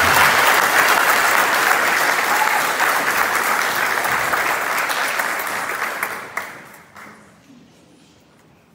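Audience applause from a crowd in a hall, steady at first, then dying away about six to seven seconds in, with a few scattered claps after.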